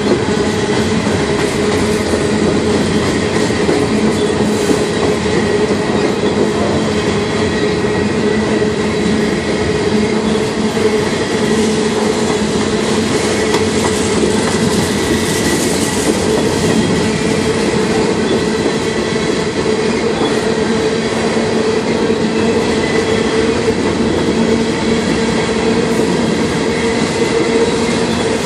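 Covered hopper cars of a Norfolk Southern grain train rolling steadily past: a continuous rumble of steel wheels on rail, with steady ringing tones above it.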